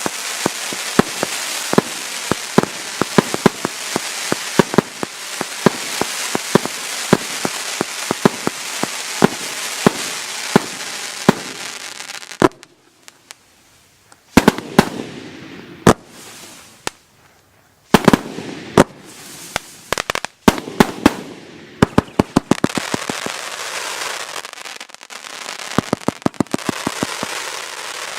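Daytime fireworks cake, a 100-shot 1.2-inch battery, firing: rapid sharp bangs over a continuous crackling hiss. Around the middle there is a short lull, then scattered shots pick up into a dense run of bangs and crackle again.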